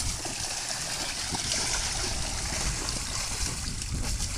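Water sloshing and lapping steadily in an inflatable kiddie pool, stirred by children moving in it.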